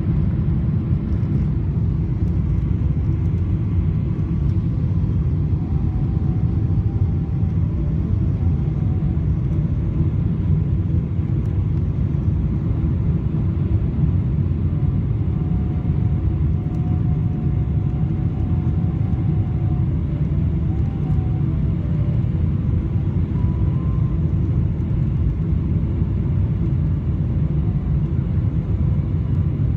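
Steady low rumble of a Boeing 777-300ER airliner heard from inside the cabin, with faint thin tones that come and go above it.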